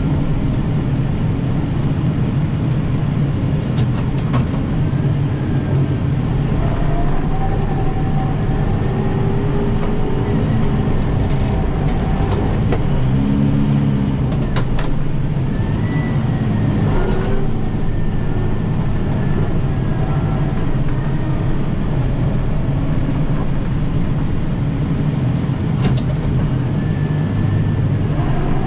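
Kubota M7060 tractor's diesel engine running steadily while it works an 80-inch Pronovost snowblower through heavy wet snow, with a few sharp clicks or knocks.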